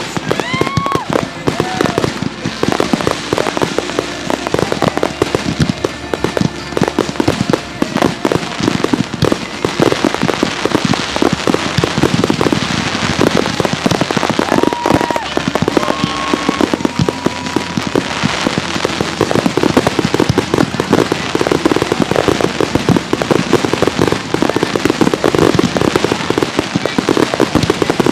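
Consumer fireworks going off in a dense, continuous barrage of rapid bangs and crackles.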